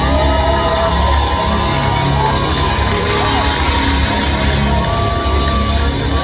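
Live funk band playing over a loud PA, with a heavy, steady bass line, and a crowd shouting and whooping along.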